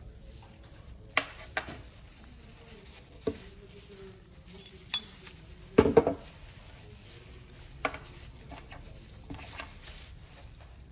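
Scattered clicks and knocks of a CO2 pistol's metal magazine, canister and small tools being handled and set down on a wooden table. The loudest is a quick cluster of knocks about six seconds in, as the magazine is handled on the tabletop.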